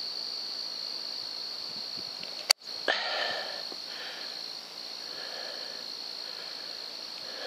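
Steady high-pitched hiss of night ambience in the scope's recording, broken about two and a half seconds in by a single sharp crack and a split-second dropout, followed by a few faint, softer sounds.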